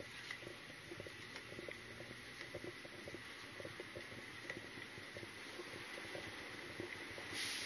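Footsteps and the light, irregular ticking and rubbing of carried gear against a body-worn camera while walking, over a low background hiss. A short burst of hiss near the end.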